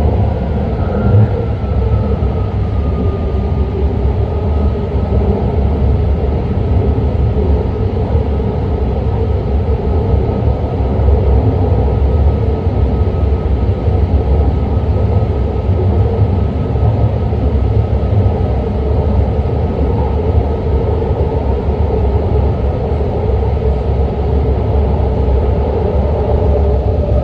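BART train running at speed, heard from inside the car: a steady low rumble of wheels on track with a steady high whine over it.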